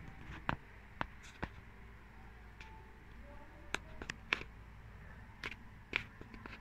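A kitten at play, its paws and claws making scattered light taps and clicks, about eight in a few seconds, with no meowing.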